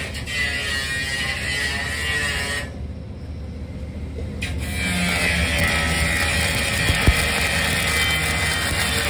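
Stick-welding arc from a 6010 electrode crackling and hissing on a vertical steel seam. It goes out for about two seconds a third of the way in, then strikes again and burns steadily, with one sharp pop later on.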